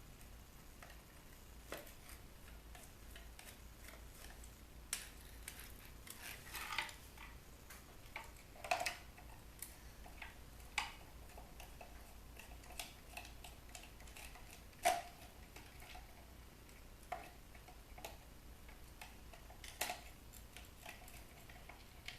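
Irregular light clicks and ticks of a screwdriver and screws being worked out of a bug zapper's housing, with the loudest click about two thirds of the way through.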